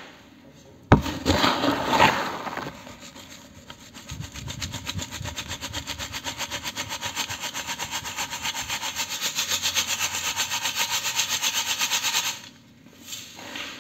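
Dry cement being shaken through a metal sieve: a sharp knock about a second in and a gritty rush, then a rapid, even rasping of grit against the mesh at about five or six strokes a second, which stops near the end.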